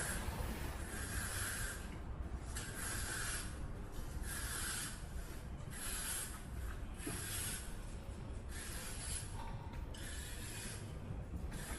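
Repeated rasping strokes, roughly one every second and a half, over a steady low rumble.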